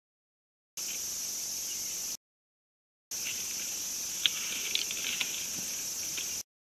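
A steady, high-pitched insect chorus, typical of crickets, drops out to dead silence three times as the live stream's audio cuts out. A few sharp clicks fall in the middle, the first and loudest about four seconds in.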